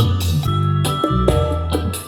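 Pop song with a heavy bass line and percussion, played back through a car speaker under test.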